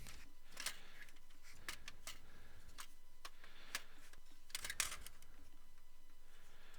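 Faint, scattered clicks and light taps of hands handling the hard parts of an open desktop computer, with a few in quick succession a little under five seconds in.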